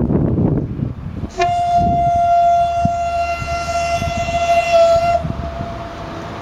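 A 2TE116 diesel locomotive's horn giving one steady single-note blast of about four seconds, starting a little over a second in, over a low rumble.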